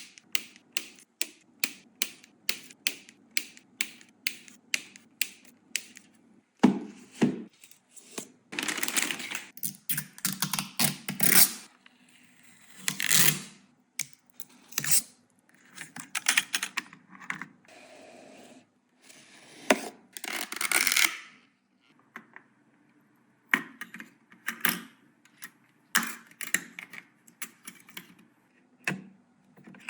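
Hands handling computer hardware: a quick run of sharp clicks, about three a second, then stretches of rustling and scraping with scattered clicks and knocks.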